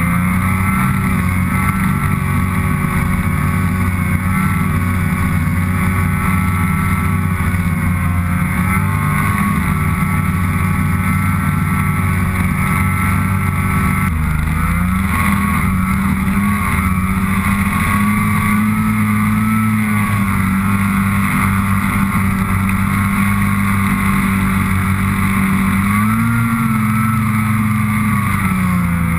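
Snowmobile engine running under throttle at speed, a steady engine note that dips briefly midway and rises then falls again near the end as the throttle changes.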